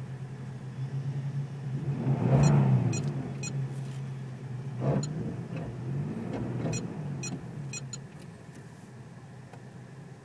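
A vehicle engine revving up and down under strain during a tow-strap recovery pull, heard from inside a car's cabin over a steady engine hum. The loudest rev comes about two and a half seconds in, with runs of sharp ticks around it and again later.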